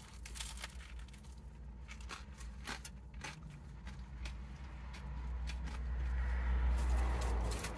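Two people biting into and chewing ftira sandwiches: scattered soft clicks and crunches over a steady low hum. A low rumble swells about five seconds in and eases off near the end.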